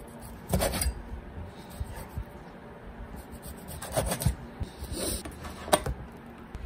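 Kitchen knife slicing through a boiled octopus tentacle on a plastic cutting board: a few separate scraping strokes, with the blade knocking on the board, the sharpest knock near the end.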